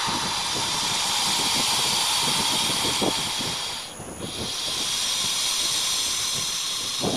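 Anaconda breathing: a loud, steady hiss of air through its nostrils, broken by a short pause about four seconds in, then a second long breath.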